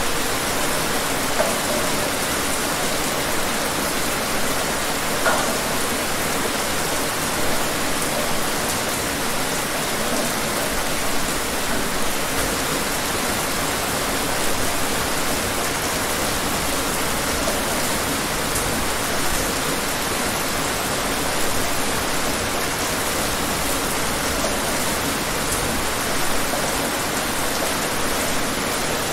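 Steady rain falling: an even, dense hiss with small swells of louder drops every few seconds.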